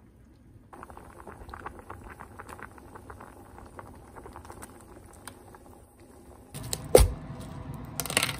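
Soft patter of small ticks as cut ingredients shift in a stainless perforated strainer, then a loud thump about seven seconds in as they are tipped into a pot of simmering water. Near the end, crinkling plastic wrap on a tub of miso.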